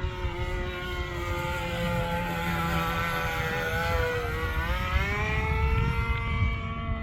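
O.S. Max .15 two-stroke glow engine of a mini parasol RC plane running at high revs, its pitch sinking slowly and then climbing again about four seconds in.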